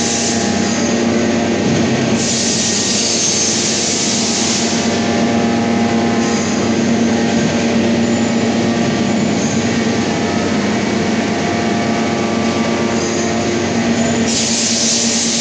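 Industrial machinery running steadily with a constant hum and several held tones, joined twice by a loud hiss lasting a few seconds, about two seconds in and again near the end.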